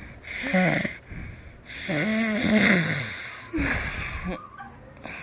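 Snoring: three loud snores, the middle one the longest and loudest.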